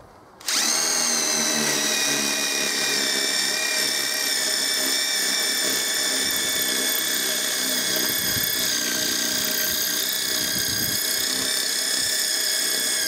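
Cordless DeWalt impact driver running at full speed, drilling a 6 mm hex-shank multi-material masonry bit into a 50 mm concrete paving slab. The driver starts about half a second in and holds one steady pitch. The bit cuts through easily.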